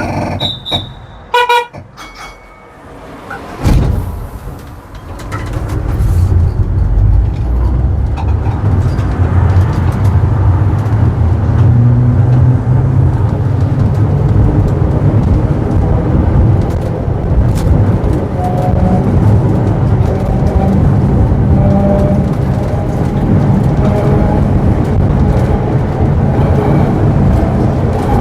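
Vintage tram: two short pitched warning signals about a second in, a sharp clunk near four seconds, then the tram gets under way and runs with a steady low rumble that builds over a couple of seconds and holds.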